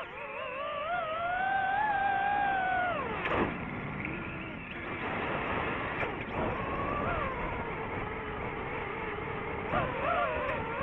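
DJI FPV drone's motors and propellers whining. The pitch climbs slowly over the first two seconds, drops away sharply about three seconds in, then settles into a lower, steadier whine with small swells as the throttle changes.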